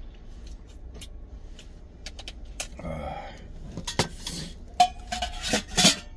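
Stainless steel camping pot and the utensils in it clinking and knocking as they are handled. The clinks are scattered at first and come thicker and louder in the second half, one leaving a short metallic ring.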